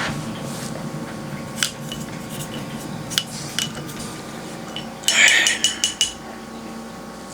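Painting supplies being handled: a few single light clinks, then a quick run of several clinks about five seconds in, like hard objects knocking against jars or dishes.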